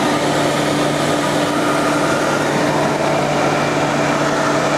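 Ruwac NA35-1220 explosion-proof industrial vacuum running steadily: its sound-suppressed 3-horsepower motor and five-stage centrifugal turbine give an even rushing hum with a steady low tone, about 78 decibels at three feet.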